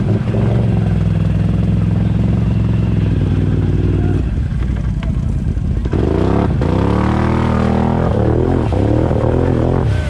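ATV engine running at a steady pitch, then revved up and down repeatedly from about six seconds in.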